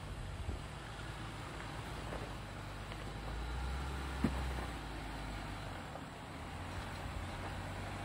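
Jeep engine running low and steady while crawling over a trail obstacle, pulling harder for a couple of seconds about three seconds in, with a single sharp knock a little after four seconds.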